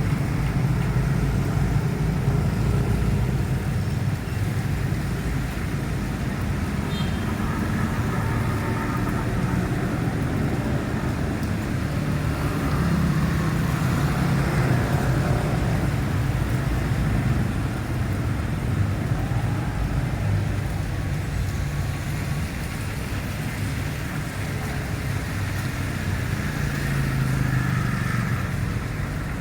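Road traffic: vehicle engines and tyre noise running steadily, the low engine rumble swelling and easing as vehicles pass.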